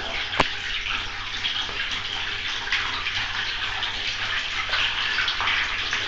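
Water running from a hose into the basin of a wringer washing machine, a steady splashing fill.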